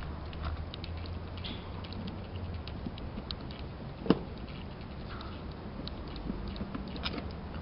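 A Torx screwdriver working the screws out of a Corvette C5 tail lamp: small scattered clicks and scrapes of the bit in the screw heads, with one sharper click about four seconds in, over a steady low hum.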